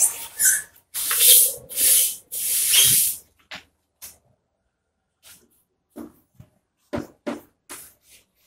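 A board duster rubbed across a chalkboard in several long strokes over the first three seconds. After a pause, the short clicks and scrapes of chalk writing on the board follow.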